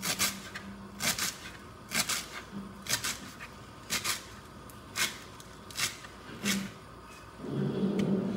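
Kitchen knife chopping fresh coriander on a cutting board: short sharp knocks about once a second, some coming as quick double chops.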